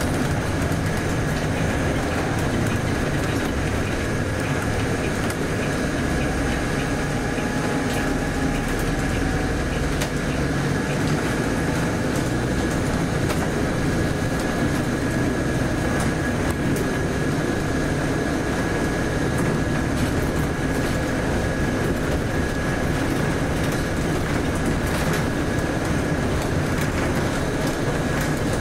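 Volvo B8RLE bus underway, heard from inside the cabin: a steady diesel engine and road drone with a thin high whine and scattered small clicks and rattles.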